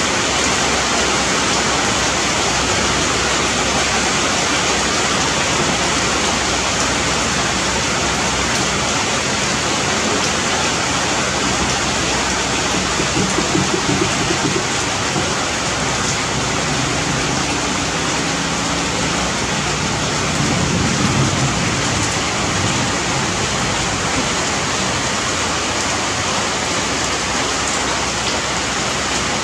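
Steady heavy rain falling on leaves and branches, an even hiss that holds throughout.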